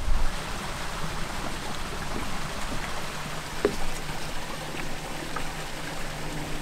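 Steady hiss of running water, like a small stream flowing, with a faint knock or two.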